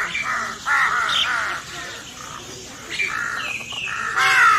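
Crows cawing: a series of harsh caws, some in quick pairs, with short gaps between groups.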